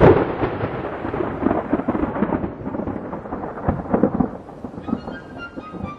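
Thunderclap: a sudden loud crack, then a crackling rumble that fades away over about five seconds.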